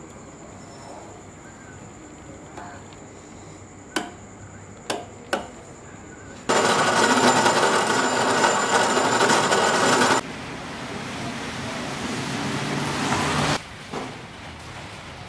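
A few sharp metal clinks, then a horizontal metal-cutting bandsaw cutting through a steel pipe, loud and steady for about four seconds. The noise then drops to a lower level for a few seconds and cuts off suddenly near the end.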